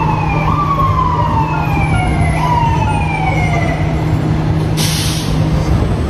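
Emergency vehicle siren winding in slow falling wails, each dropping in pitch for about two seconds before jumping back up, over a steady low hum. A short hiss comes about five seconds in.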